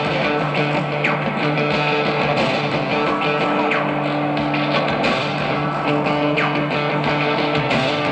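Live rock band playing an instrumental passage, with electric guitars holding sustained chords over bass. A falling guitar sweep comes back every few seconds. It is heard through a camcorder microphone in the audience.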